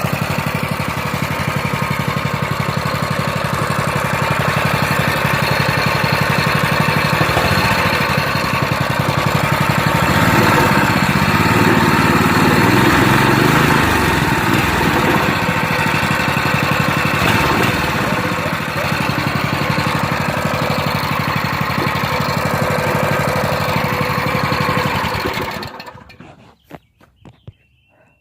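Predator 212 single-cylinder four-stroke go-kart engine running smoothly on a newly fitted carburetor whose idle has just been adjusted. It gets louder for several seconds in the middle, then stops suddenly near the end.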